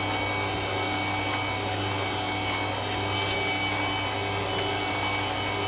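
Electric kitchen stand mixer running at a steady speed, its beater whipping buttercream.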